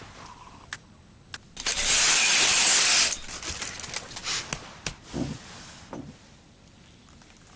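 Foley sound effects: two sharp clicks, then a loud rushing hiss lasting about a second and a half, followed by scattered clicks and rattles and two short low thuds.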